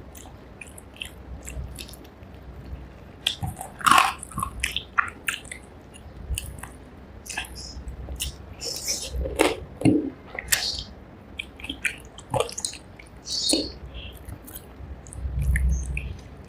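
Close-up eating sounds of rice with fish curry: wet chewing, lip smacks and small clicks, irregular and with pauses, with a low thumping rumble about fifteen seconds in.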